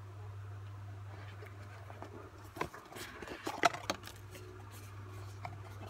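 Cardboard Redmi Note 9 retail box handled and opened, with a cluster of light taps and scrapes about halfway through as the lid and inner box slide apart. A steady low hum runs underneath.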